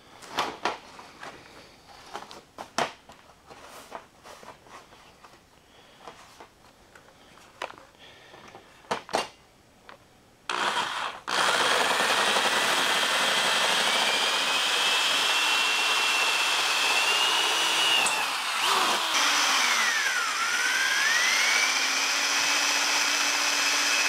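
Corded electric drill boring holes through steel angle iron on a garage door panel. The first ten seconds or so hold only light knocks and clicks. Then the drill runs steadily with a high whine, its pitch dropping sharply and climbing back once near the end as the bit bites into the steel.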